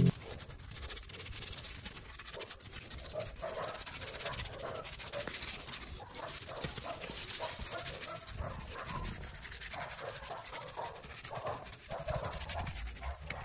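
Detailing brush scrubbing foamy cleaner into a perforated leather car seat, in quick, rhythmic back-and-forth strokes.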